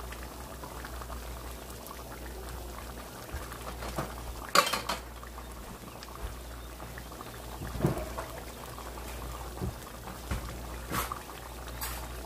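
Thick pepper sauce bubbling at a steady simmer in a pot, with a few sharper pops, the loudest about four and a half seconds in.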